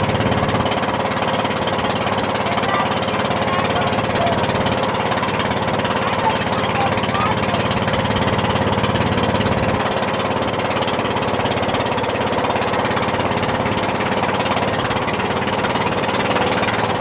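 Outrigger boat's engine running loud and steady under way, with a fast, even chugging beat.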